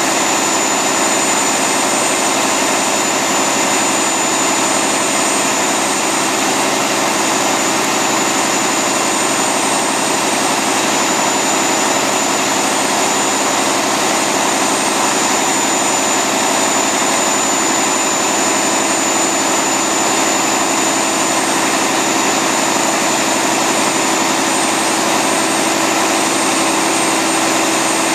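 Niigata 13.3-litre turbocharged railcar diesel engine running steadily under test, with the turbocharger's high-pitched whine held above the engine note.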